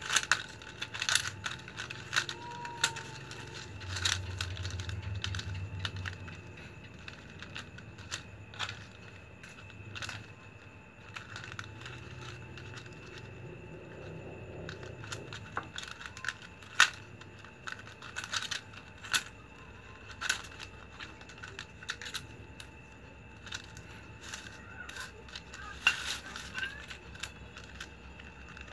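Flat plastic strapping strips crackling and clicking as they are bent, slid and pushed through a hand weave, with sharp irregular clicks, the loudest about a second in, around seventeen seconds in and near twenty-six seconds in.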